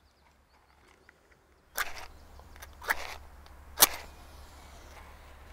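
A match struck three times against the side of its box to light a candle: three short, sharp scrapes about a second apart, the last the loudest.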